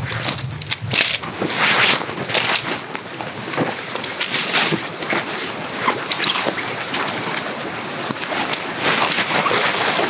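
Fabric rustling and crinkling in irregular bursts as a bedroll is pulled out of its stuff sack and shaken out.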